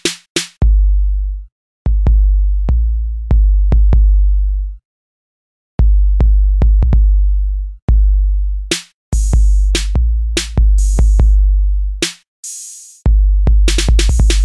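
Electronic hip-hop beat from a drum machine: deep 808-style bass kicks and sharp claps or hi-hats in a stop-start pattern with short silent gaps between phrases.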